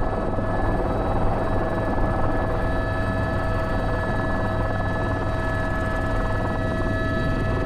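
Airbus H125 helicopter running steadily at flight power, heard from the cockpit: a constant turbine and gearbox whine of several steady tones over the low, dense rumble of the rotor.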